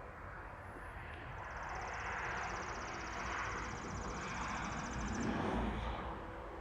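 Distant thunder-like rumble from the sky, swelling over several seconds and then easing off, with a high, evenly pulsing trill through the middle.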